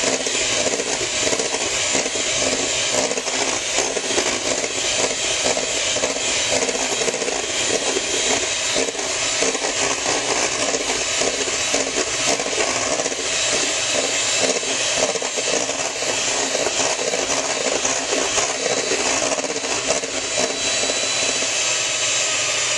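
Electric hand mixer running steadily, its beaters whipping egg whites in a stainless steel bowl up to the stiff-peak stage.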